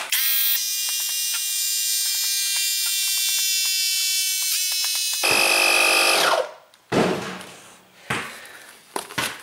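Small portable air compressor running as it inflates a mini bike tire to about 15 PSI, a steady whining motor drone. About five seconds in the sound changes and grows louder, then the motor winds down in pitch and stops. A few sharp clicks follow.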